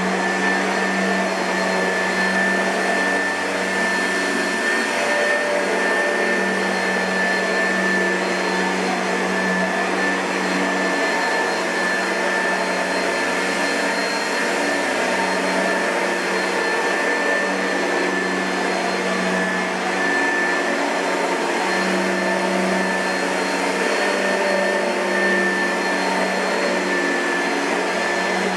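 2005 Oreck XL2 upright vacuum cleaner running steadily, a constant high whine over a low motor hum.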